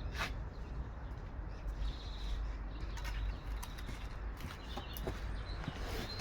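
Small birds chirping now and then over a steady low outdoor rumble, with a few sharp knocks.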